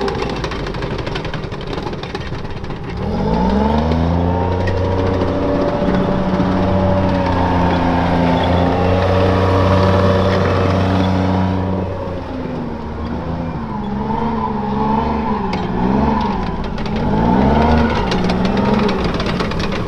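M113 armoured personnel carrier's Detroit Diesel 6V53 two-stroke V6 diesel running as the tracked vehicle drives. The revs climb about three seconds in and hold high, drop about twelve seconds in, then rise and fall several times near the end.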